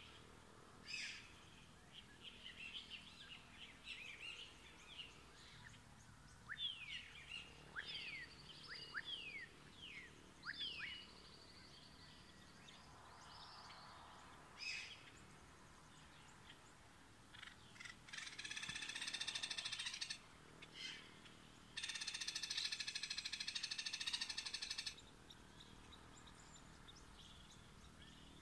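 Dawn countryside chorus of calling birds: a run of quick, falling whistled notes. Near the end come the two loudest sounds, harsh buzzes lasting about two and three seconds, each starting and stopping abruptly.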